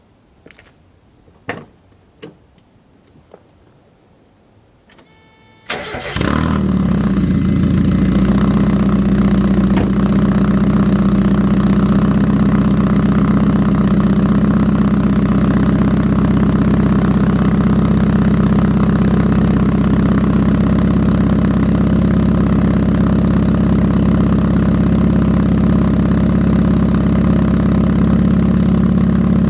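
A Mazda Eunos Roadster's four-cylinder engine, breathing through a 5ZIGEN Super Lap exhaust with its silencer insert fitted, is cranked by the starter and catches about six seconds in, then idles steadily. A few faint clicks and knocks come before the start.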